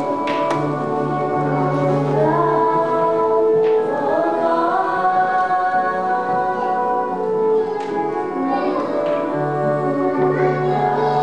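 Mixed youth choir of men's and women's voices singing together, held notes gliding from one pitch to the next.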